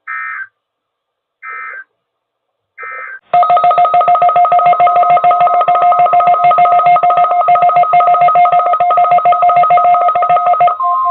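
Emergency Alert System test signal: three short chirping data bursts of the digital SAME header, each about half a second long and about a second and a half apart. About three seconds in, a loud two-tone attention signal starts, pulsing rapidly. Near the end a single steady alert tone takes over, the weather radio warning-alarm tone.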